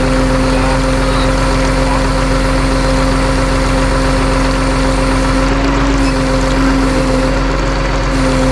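Truck engine running steadily at an even speed, with a constant droning pitch.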